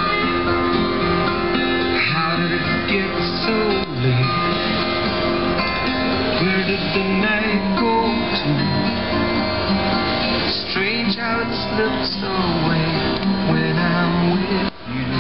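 Background music led by a plucked acoustic guitar.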